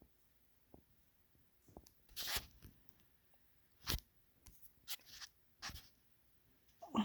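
A person with a head cold sniffling: about six short, sharp sniffs at irregular intervals, the loudest near the end.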